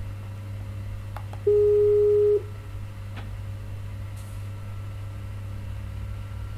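Ringing tone of an outgoing video call on a laptop: one steady tone, held for about a second, sounds about a second and a half in, as part of a repeating calling signal. A steady low hum runs underneath, with a couple of faint clicks.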